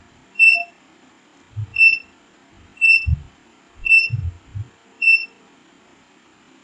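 Digital mosque prayer-time clock beeping five times, about once a second. Each short, high beep acknowledges a button press on its remote as the display steps through the prayer times. Dull low thumps fall between the beeps.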